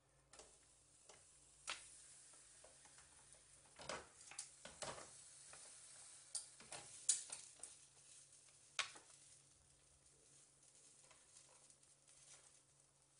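Sharp metal clicks and knocks of a cast-iron stovetop toastie press being handled, with a knife spreading butter on the toast, over a faint sizzle of the toastie cooking. The knocks are scattered and irregular, the loudest about seven and nine seconds in.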